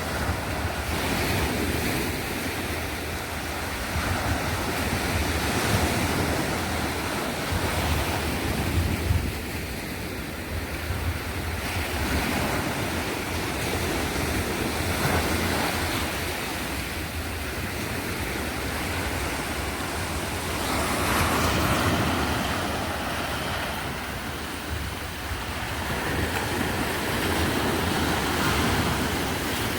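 Sea waves washing onto the shore, a steady surf noise that swells and eases every several seconds, with wind rumbling on the microphone.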